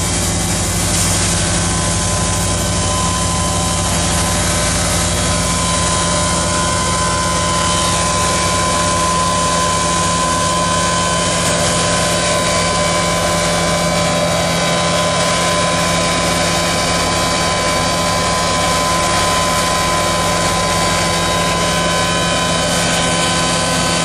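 Steady drone of farm machinery at work: a CAT track tractor's diesel engine pulling a fertilizer applicator and air cart, with a steady whine running over it.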